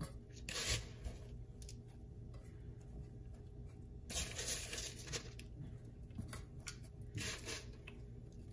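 Soft rustling and handling sounds as sugar-coated biscuit dough pieces are picked out of a mixing bowl and set into a metal bundt pan, with three short rustling bursts.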